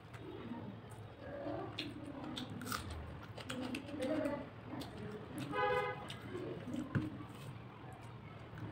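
Close-up chewing and lip-smacking of a person eating rice and fried fish by hand, with small wet mouth clicks throughout. A little past the middle, a short honk-like tone lasts about half a second, and a sharp click follows about a second later.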